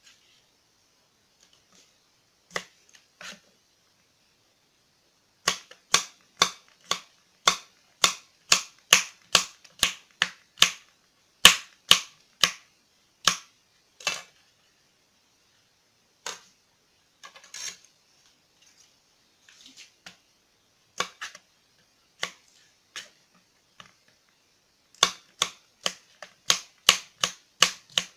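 Kitchen knife slicing a cucumber into rounds on a cutting board: sharp taps of the blade on the board, about two to three a second in a steady run, then a few scattered taps, then another quick run near the end.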